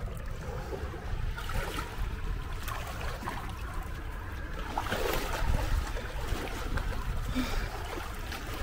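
Shallow seawater lapping and sloshing against a stone seawall, over a low rumble of wind on the microphone.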